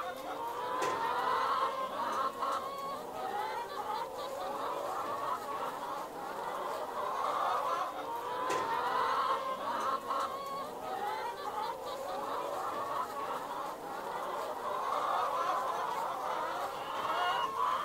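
A flock of free-range hens clucking and calling, many birds at once, without a break.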